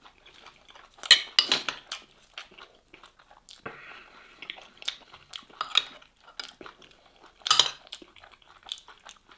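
A metal spoon clinking and scraping against a terracotta bowl as stew is scooped onto a piece of flatbread. The loudest clinks come about a second in and again near the end.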